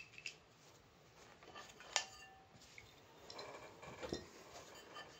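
Small turntable parts being handled and set down on a towel-covered table: scattered light clicks and clinks, with one sharp, briefly ringing clink about two seconds in and a run of soft knocks and rattles a second or so later.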